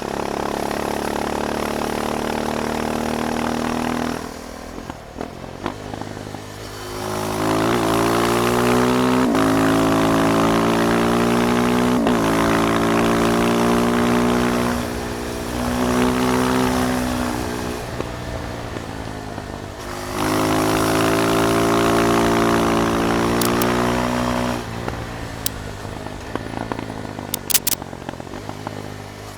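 KTM 390 Duke's single-cylinder engine out on a ride, pulling hard through the gears twice, with its pitch climbing and then stepping down at each gear change, and easing off the throttle in between.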